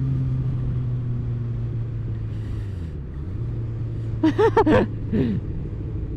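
Motorcycle engine running steadily, its pitch dipping as it eases off about three seconds in and then picking back up. A little past four seconds, a few short wavering calls sound over it, with another just after, which fit sheep bleating.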